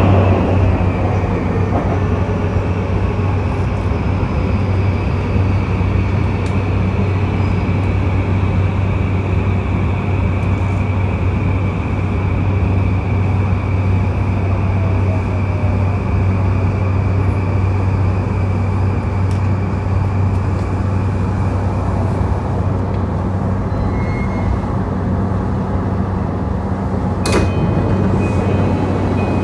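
Inside a JR East E235 series electric train: a steady low hum from the car's electrical equipment, with no wheel clatter. A short sharp click comes near the end.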